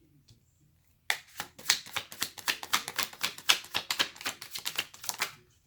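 Tarot deck being shuffled by hand: a rapid run of papery card clicks, about seven a second, starting about a second in and stopping near the end.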